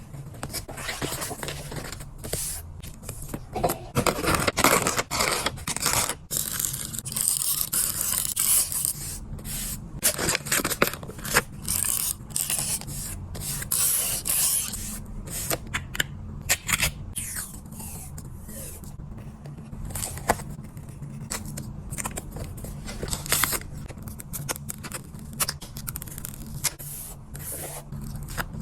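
Paper stickers being peeled from their backing and pressed and rubbed down onto a goo card book: an irregular run of short scraping, crinkling and peeling strokes.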